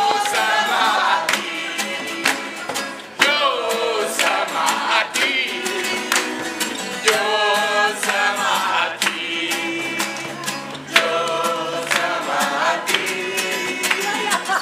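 A group of young voices singing together to strummed acoustic guitars, with hand-clapping along to the beat.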